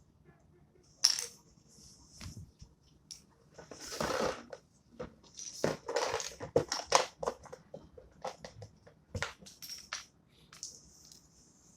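A cockatiel scuffling with a sock: a run of irregular scratchy rustles and sharp clicks, busiest in the middle.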